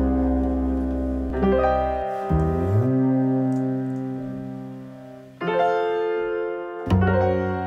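Solo piano music: slow, held chords that ring and fade, with new chords struck a little over a second in, after about five seconds and again near the end.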